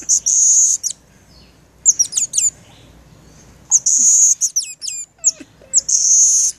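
A baby monkey's shrill, very high-pitched calls, up close: long held squeals alternating with quick chirps that sweep down in pitch, in several bouts.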